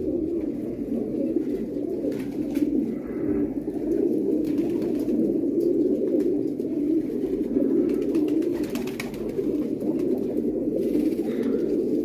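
Many domestic fancy pigeons cooing at once, a steady, unbroken chorus of low coos.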